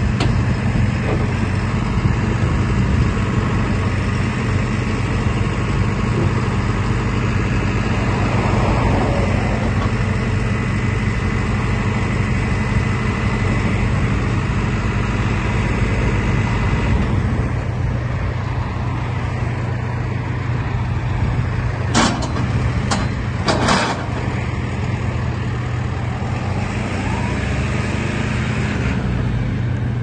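JCB 3CX Eco Sitemaster backhoe loader's four-cylinder diesel engine idling steadily, with a few sharp knocks about three-quarters of the way through.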